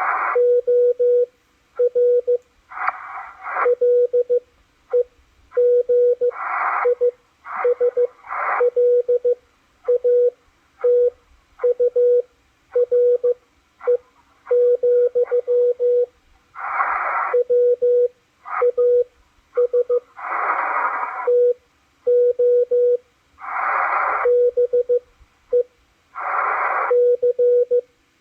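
Morse code (CW) heard on a DSP SDR receiver: a steady tone of about 500 Hz keyed on and off in dots and dashes. Band noise hisses up in the longer gaps between characters.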